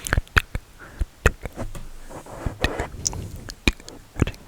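Close-miked ASMR trigger sounds: a rapid, irregular run of sharp clicks and taps, with a short soft rustle about two seconds in.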